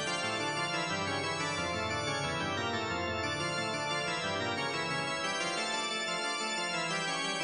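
Background music of sustained organ chords, the notes held long and steady.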